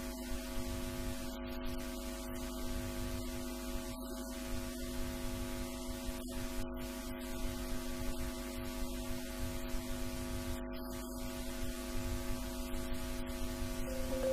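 Steady electrical mains hum with hiss in the recording, a low buzz with its overtones and nothing else.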